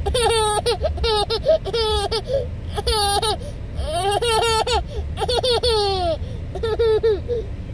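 A toddler laughing in a long run of short, high-pitched giggles, with brief pauses between bursts, over a steady low rumble.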